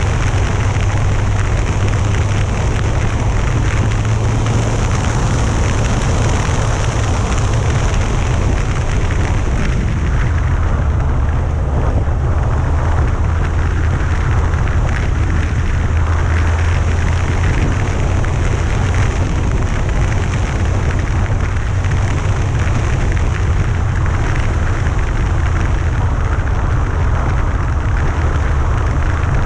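Yamaha FJR1300A's inline-four engine running steadily while the motorcycle is ridden, a low steady drone under heavy wind rushing over the camera's microphone.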